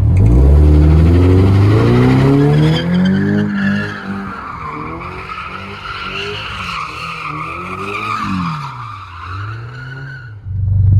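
Car engine accelerating. Its pitch rises steadily over the first four seconds, then wavers up and down, dips about eight and a half seconds in, and climbs again.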